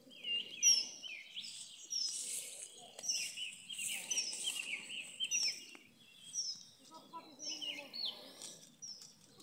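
Songbirds singing: a steady run of short, high chirps that each drop in pitch, repeating more than once a second, with other birds' calls overlapping them.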